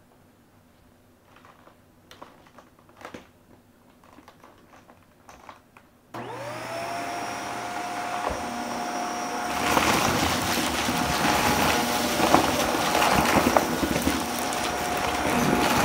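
A few faint clicks and knocks, then a Shark Navigator upright vacuum switched on about six seconds in, its motor whining up to speed. From about ten seconds on it crunches and crackles as it sucks up debris off the floor.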